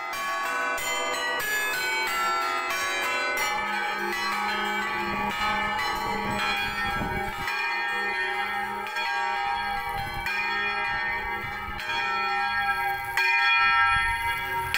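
Several church bells ringing together, their strikes overlapping into a continuous peal of long-sounding tones, with the strikes thickest in the first few seconds. The peal grows louder about thirteen seconds in.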